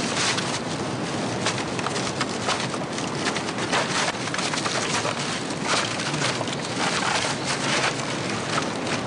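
Steady rushing water noise with irregular crackles and clicks of bamboo poles and bamboo strips being handled and lashed together into a raft.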